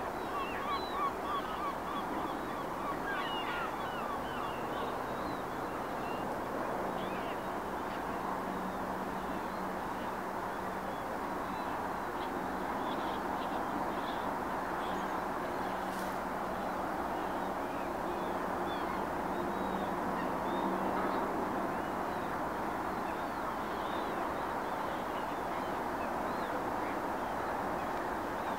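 A flock of gulls calling, many short calls scattered over a steady background wash, with a quick run of repeated calls in the first couple of seconds.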